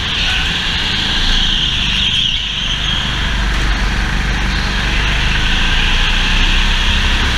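Go-kart engine heard from on board, running steadily at racing speed as a low drone with a constant hiss above it.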